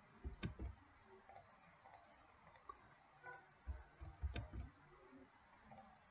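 Faint computer mouse clicks: a few about half a second in, then a cluster of several around four seconds in.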